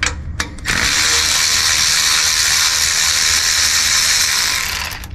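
Cordless power tool run on a rear sway bar link bolt: a few sharp clicks, then about four seconds of steady running before it stops near the end.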